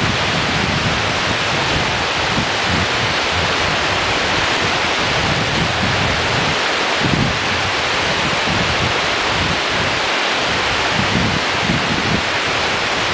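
Rio Grande whitewater rapids rushing in a steady hiss, with wind gusting on the microphone in uneven low rumbles.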